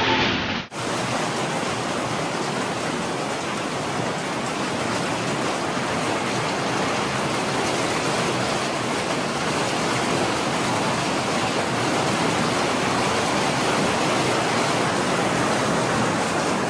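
Steady, even rushing noise of a storm, starting abruptly a little under a second in and holding level throughout.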